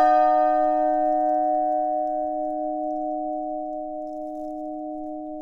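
New bronze church bell from the Cornille-Havard foundry, struck once with a mallet and left to ring out. The bright upper tones of the strike die away within about two seconds, while a low hum and two middle tones fade slowly.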